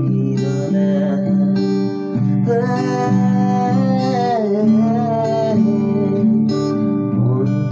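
A man singing while strumming a steel-string acoustic guitar. Midway he holds one long note that slides lower.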